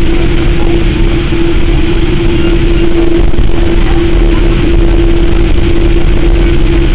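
Cabin noise of a Boeing 787-8 Dreamliner taxiing: a loud, steady hum with one constant drone tone over a low rumble.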